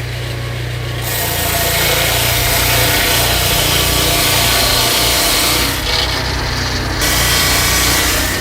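Swing-blade sawmill running: a steady engine hum under the hiss of the blade cutting through timber. The cutting sound comes in about a second in and eases briefly around six seconds in.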